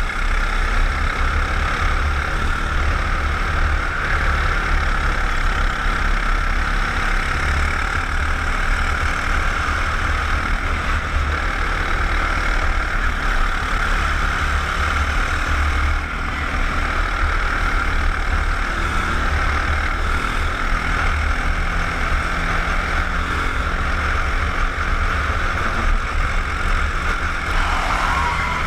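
Racing kart engine running hard at speed, heard from an onboard helmet camera, with wind buffeting the microphone in a low rumble. Near the end the engine note dips and climbs again.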